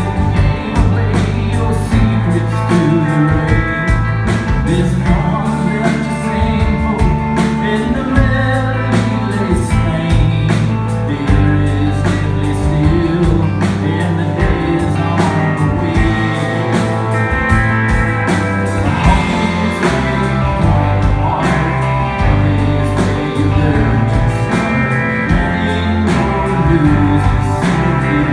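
A rock band playing live: electric guitars, electric bass and drums.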